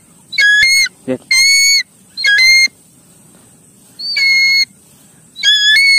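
Changeable hawk-eagle calling: five shrill, whistled calls, each about half a second long at a steady pitch.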